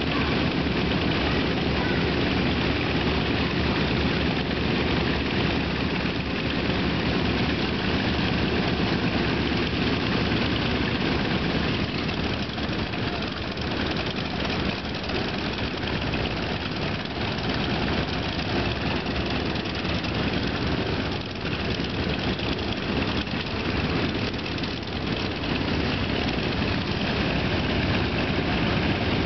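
North American T-28 Trojans' radial engines running at idle with propellers turning: a steady, continuous engine sound that dips slightly in level around the middle.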